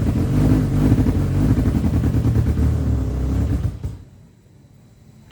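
Honda Genio scooter's single-cylinder engine running unevenly and stuttering after sitting unused for 8 to 10 years, then stopping about four seconds in.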